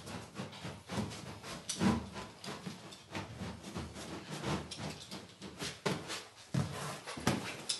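Gloved hands pushing and sliding a carpet across the floor and pressing it down along the wall edge: irregular scuffing and rustling, loudest about two seconds in.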